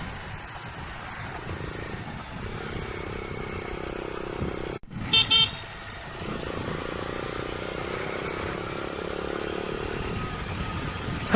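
Steady engine and road noise of a motorcycle riding in traffic; about five seconds in, a vehicle horn gives two short, loud toots.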